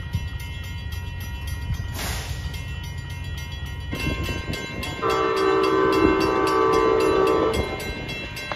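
Train horn sounding one held chord for about two and a half seconds, over the steady low rumble of a train. A short hiss comes about two seconds in.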